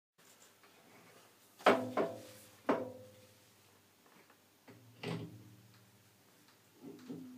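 Heavy metal parts of a high-speed milling head knocking together as the head is handled and fitted to the mill: four sharp clunks, each ringing briefly, then softer clunks near the end.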